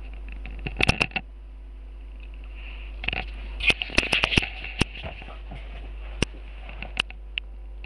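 Scattered light clicks and taps over a steady low hum: a few about a second in, a quick run of them from about three to five seconds in, then single ones spaced out toward the end.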